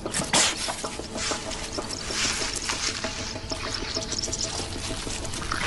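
Honey badger chewing and crunching on a dead puff adder: a quick, irregular run of wet crackles and clicks, over faint background music.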